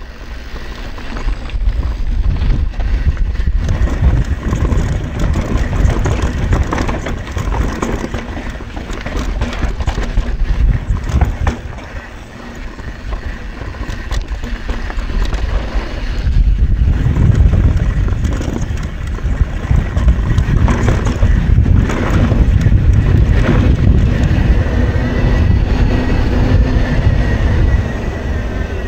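A YT Tues downhill mountain bike descending a rough trail: wind rumbling over the action camera's microphone and tyres rolling over dirt and rock, with frequent sharp clatters as the bike hits roots and stones. The noise eases for a moment about twelve seconds in, then builds again.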